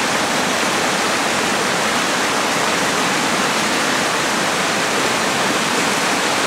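Whitewater rapids of a river running high, a steady loud rush of water over rocks.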